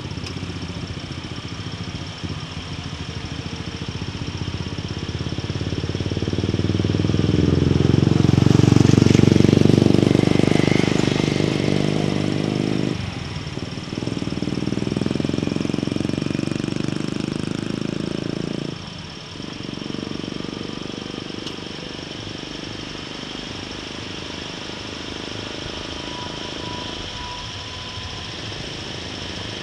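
Vehicle engine running on the move over a rough road, with road and wind noise. It builds to its loudest a few seconds in, cuts out briefly twice, near the middle and about two thirds through, then runs quieter and steadier.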